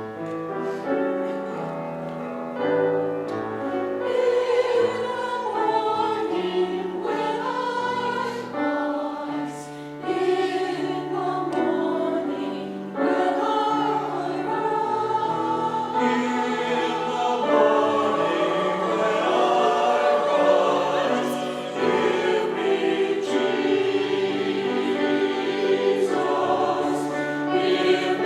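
A church choir singing with instrumental accompaniment, held notes moving from chord to chord.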